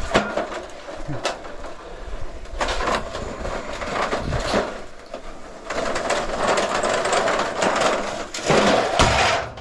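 Scrap metal being handled and moved: irregular clanks and knocks, with a longer stretch of scraping in the second half.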